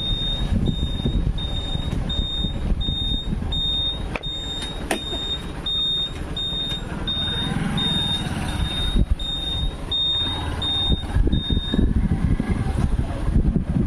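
A high electronic beeper repeating evenly, about three beeps every two seconds, and stopping about twelve seconds in, over the steady low rumble of a vehicle and wind.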